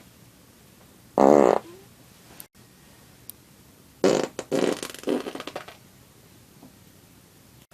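Loud human farts: a short buzzy one about a second in, then, after a cut, a longer sputtering run of several bursts around four to six seconds in.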